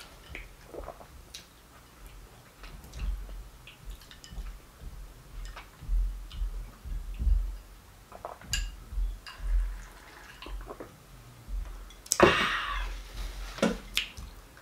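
Close-miked eating and drinking sounds: small wet mouth clicks and chewing with soft low thumps, then sips and swallows of juice from a glass. About twelve seconds in comes a louder breathy burst, like an exhale after the drink.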